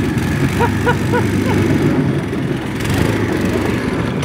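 Small go-kart engine on a boat hull running under throttle as the boat-kart drives along, getting somewhat louder about three seconds in.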